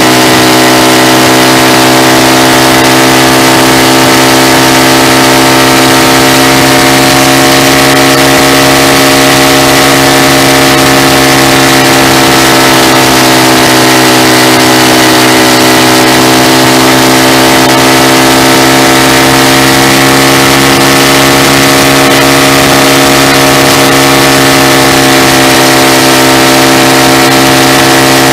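Loud exhaust note of a 2014 Honda Grom's 125cc single-cylinder four-stroke through a Yoshimura full exhaust system, heard right beside the muffler while the bike rides at a steady speed. The engine pitch dips slightly about halfway through and rises again.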